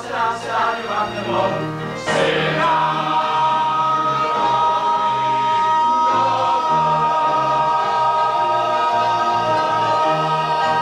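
Male lead and chorus singing a Broadway show tune with band accompaniment, building to the finale. About two and a half seconds in, the music settles onto one long held final note over a moving bass line.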